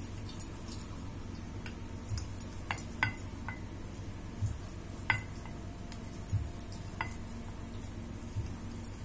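A rolling pin rolls out a small ball of dough on a marble rolling board: soft low thumps from the strokes, with scattered sharp clicks and light clinks as the pin and hands touch the stone.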